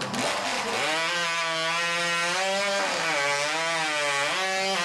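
Background music: a sustained, droning tone with slowly wavering overtones.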